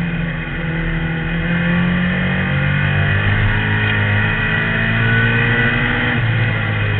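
Engine of an outlaw compact (mini stock) race car running hard under racing load, heard from the dash inside the car. The engine note shifts up and down a few times with the throttle and drops a little near the end.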